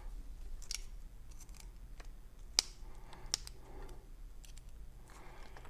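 Small metal lock parts clicking and scraping as a pin-tumbler lock cylinder is taken apart by hand, with two sharper clicks about two and a half and three and a half seconds in.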